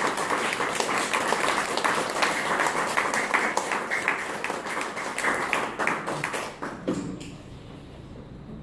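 Small audience applauding with dense hand claps, dying away about seven seconds in to quiet room tone.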